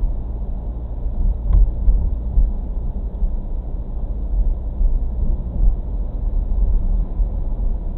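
Steady low rumble of a car's tyres and engine on a wet road, heard inside the cabin through a dashcam's microphone. A single faint click comes about a second and a half in.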